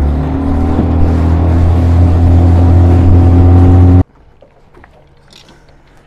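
Small aluminium fishing boat's outboard motor running steadily at speed as the boat crosses the lake, cutting off suddenly about four seconds in. A faint low hum and a few small clicks follow.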